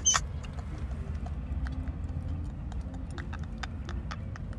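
Steady low rumble of a car's cabin, with faint irregular clicks scattered through it.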